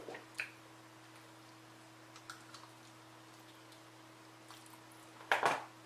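Faint mouth clicks and soft chewing of a spoonful of rice in black bean sauce, over a low steady hum. A louder, sudden sound comes near the end.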